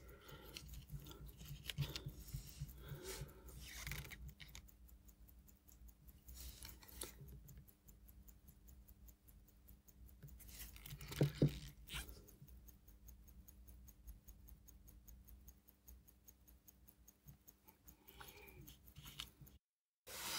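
Faint small clicks and rubbing from tweezers and gloved fingers handling a wristwatch movement while its hands are fitted, with one louder brief scrape about eleven seconds in.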